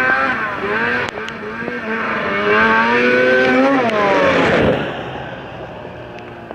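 Arctic Cat snowmobile engine revving hard, its pitch rising and dipping as the sled runs up and jumps across the highway. The engine sound peaks and swings down in pitch about four seconds in as the sled flies past, then fades away.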